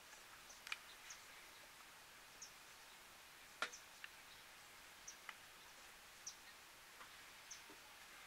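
Near silence: quiet outdoor stillness with scattered soft ticks, one sharper click a little past the middle, and a few brief high chirps.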